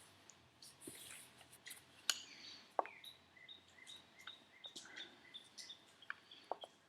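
Faint scattered clicks and clinks of small metal turbocharger parts being handled and fitted, the sharpest about two and three seconds in, with a run of short, high, repeated chirps in the second half.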